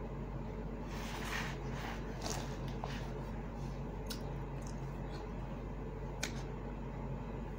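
A person eating grilled chicken and rice by hand: wet, squishy chewing with a few sharp mouth clicks.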